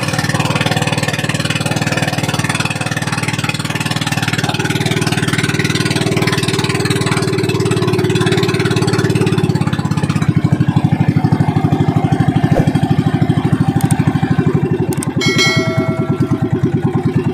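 Small boat engine running steadily with a rapid, even beat; about ten seconds in it gets louder and the beat stands out more. A brief high tone sounds near the end.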